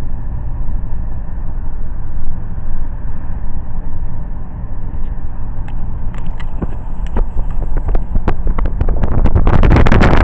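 Car in motion: a steady low rumble of road and wind noise. From about six seconds in come scattered sharp clicks, and near the end a loud rush of wind buffeting the microphone swells in, as from a camera held out the window.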